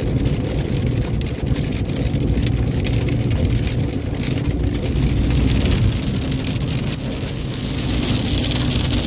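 Car driving in a rainstorm: a steady low rumble of engine and road, with rain hitting the car. A higher hiss swells near the end.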